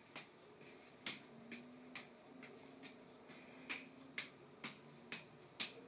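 Soft, sharp slaps of juggling balls landing in the hands, unevenly about every half second, over a steady high cricket trill.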